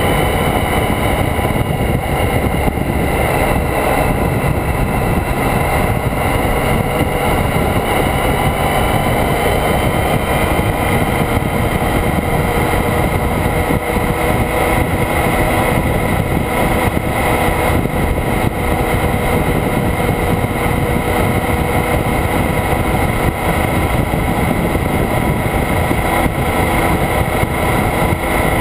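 Motorcycle cruising at steady road speed: constant wind and road rush over the bike-mounted camera's microphone, with the engine running evenly underneath.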